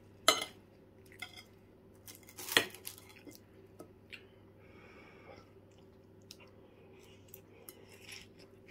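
Metal fork and knife clinking and scraping on a ceramic plate. There are two sharp clinks, just after the start and about two and a half seconds in, then lighter ticks and scrapes.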